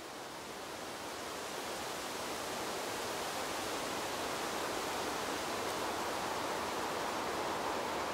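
Wind blowing through trees: a steady rushing noise that swells in over the first few seconds, then holds.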